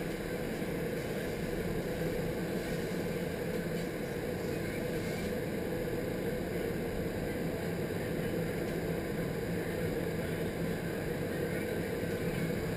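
Indoor skydiving vertical wind tunnel running: a steady rush of air with a low hum from its fans.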